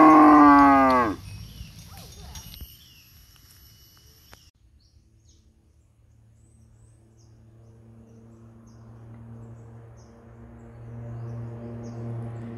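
Cow mooing loudly, the call falling in pitch and ending about a second in. Around the middle a low, steady droning hum starts and slowly grows louder.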